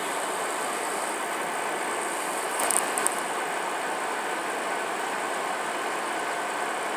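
Steady rain falling, an even hiss, with a few quick clicks about three seconds in.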